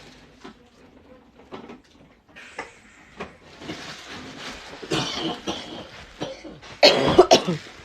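A person coughing, loudest about seven seconds in, among scattered small clicks and knocks.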